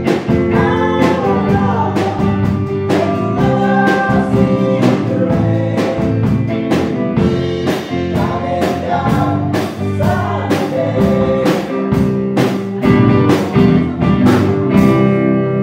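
A band playing live: two women singing into microphones over electric guitar and a drum kit keeping a steady beat.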